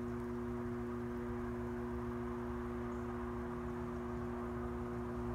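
Electric potter's wheel running with a steady motor hum, spinning a wet clay cylinder while its top is collared in.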